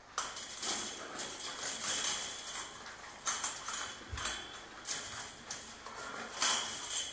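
Galvanised brace wire being fed by gloved hands through the welded steel mesh of a gabion cage: irregular scraping and clinking of wire against the mesh bars.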